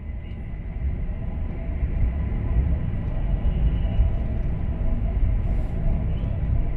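Cabin noise inside an E4 series double-decker Shinkansen on the move: a steady low rumble of running gear on the rails, growing louder over the first couple of seconds and then holding, with a faint steady whine above it.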